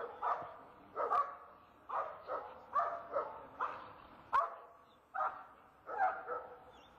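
A dog barking repeatedly, about a dozen sharp barks coming irregularly one or two a second.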